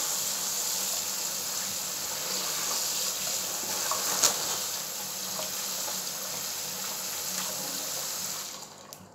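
Kitchen tap running steadily onto raw prawns in a plastic bag in a stainless steel sink as they are rinsed by hand, with one sharp click about four seconds in. The water stops near the end.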